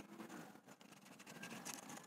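Near silence with faint scratching and a few light ticks: a fingertip rubbing and pressing on paper masking tape stuck over a plastic curtain rail.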